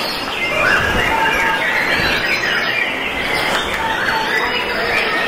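Several white-rumped shamas (murai batu) singing at once, a dense overlapping chorus of rising and falling whistles and chirps.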